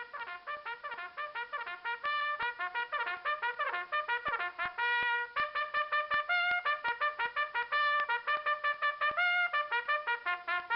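A brass-sounding tune played as a fast run of short, separate notes, several a second, that jump up and down in pitch, with a brief break about five seconds in.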